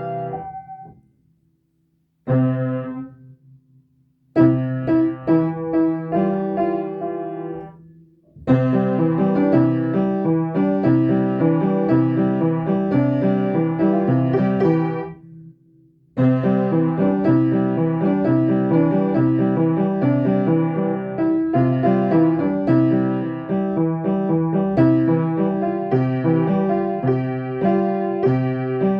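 Piano playing, at first in short phrases with pauses of a second or so between them, then continuously with a steady repeated rhythm in the low notes. It stops briefly about halfway through.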